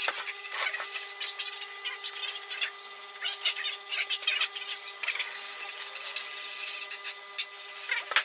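A wooden box being handled and shifted on a wooden workbench: irregular knocks, taps and rubbing scrapes of wood on wood. Under it runs a steady hum.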